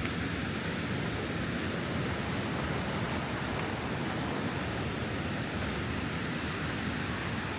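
Creek in high, fast flow over rock shoals: a steady rushing of water.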